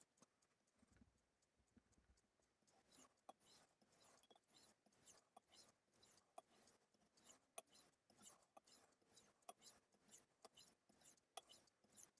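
Faint, quick strokes of a knife blade on a Suehiro Debado S 3000-grit resin-bonded whetstone, a short scrape two or three times a second while the edge is being finished.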